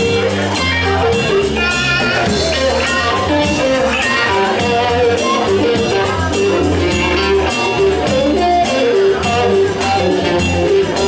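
Live band playing: electric guitars over bass and a drum kit keeping a steady beat.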